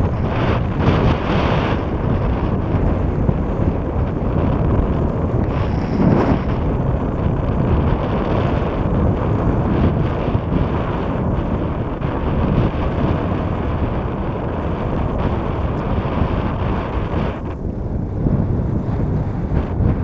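Wind buffeting the microphone on a boat at sea: a steady low rumble that rises and falls a little in gusts.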